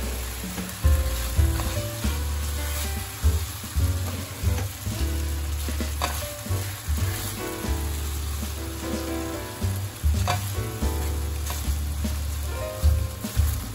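Vegetables sizzling in a hot frying pan as a sauce is poured in, with a spatula starting to stir the pan near the end. Background music with a steady bass plays throughout.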